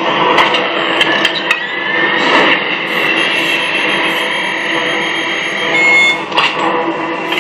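Sci-fi movie sound effects played by the sound module in an Iron Man figure's display base: a dense mechanical-electronic noise with sharp clicks, a rising whine about two seconds in and steady high tones in the middle.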